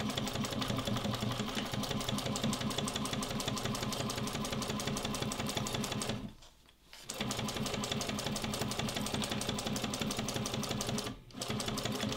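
Juki DU-1541 industrial walking-foot sewing machine stitching through leather at a steady fast rate. It stops for about a second roughly six seconds in, runs again, pauses briefly near the end, then carries on.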